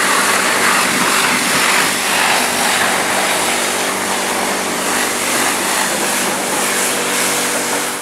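Water spraying hard onto a car's bonnet: a loud, steady hiss of spray with a low machine hum underneath, cutting off suddenly near the end.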